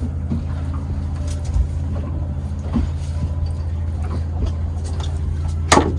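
Steady low machine hum, like a running engine or motor, with a few light clicks and one sharp click near the end.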